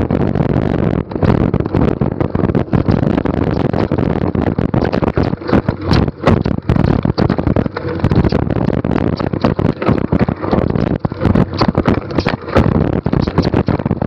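NS Bikes mountain bike riding fast down a rough dirt downhill trail: steady rushing noise from the ride and tyres, with frequent sharp knocks and rattles as the bike goes over bumps and rocks.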